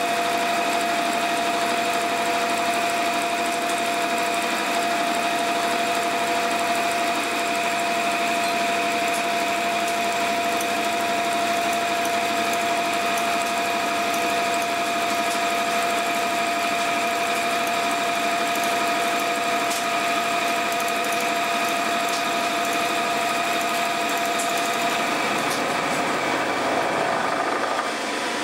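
Abene VHF-3 milling machine face-milling a steel block with a face mill carrying Seco RPHT 1204 round inserts, taking a 2 mm deep cut at 720 rpm and 600 mm/min with 2.1 kW on the spindle. The cut is a steady, loud grinding hash with a clear ringing tone. Near the end the tone fades and the sound drops a little as the cutter runs off the end of the block.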